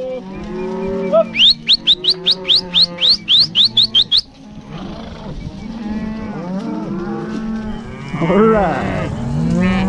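A large herd of cattle mooing and bawling, many calls overlapping, growing louder in the last couple of seconds. In the first half a quick run of about a dozen sharp, high, rising whistles cuts over the herd.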